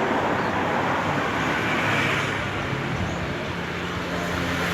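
Road traffic noise, with a steady low engine hum of a motor vehicle coming in about three seconds in.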